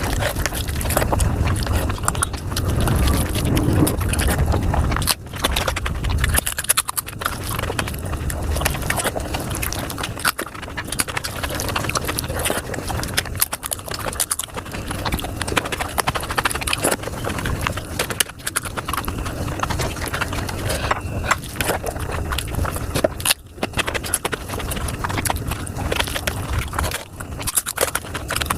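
Close-miked eating sounds of paneer butter masala played back sped up: chewing, wet smacking and mouth clicks crowded into a fast, dense clatter.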